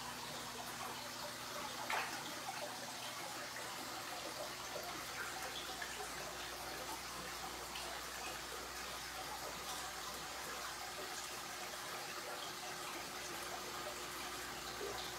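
Steady bubbling and fizzing of aquarium air stones sending columns of air bubbles up through the tank water, with one short click about two seconds in.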